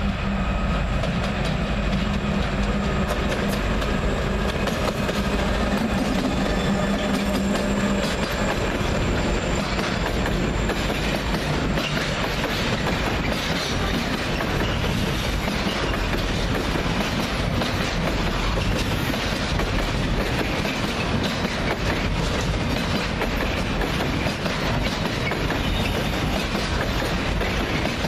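Freight train passing at close range: a steady low engine tone for the first eight seconds or so, then the wagons' wheels clattering with rapid clicks over the rail joints.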